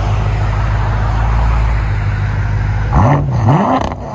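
BMW M6's 4.4 L twin-turbo V8 running through a muffler-delete exhaust (mufflers replaced with straight pipe, resonators and X-pipe kept, quad tips), a steady deep drone. About three seconds in the throttle is blipped twice, the revs climbing, dipping and climbing higher.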